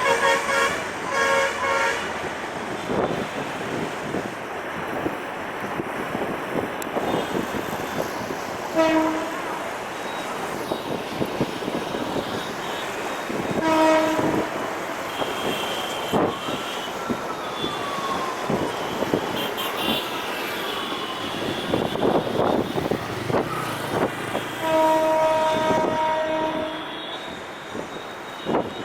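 Diesel-hauled passenger train running slowly past with a continuous rumble and wheel clatter. Horns sound repeatedly over it: a quick series of short toots near the start, single short toots twice later, and a longer blast near the end.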